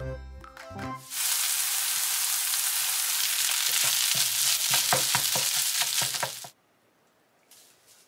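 A second of music, then kimchi fried rice sizzling in a hot non-stick frying pan while a spatula stirs it, with several sharp scrapes and taps of the spatula against the pan partway through. The sizzle cuts off suddenly after about five seconds.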